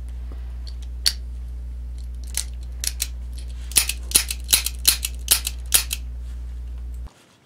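Sharp metallic clicks from the action of a hand-worked Ruger Security Six .357 Magnum revolver: a few scattered clicks, then a quicker run of about eight in two seconds. A steady low hum underneath cuts off abruptly near the end.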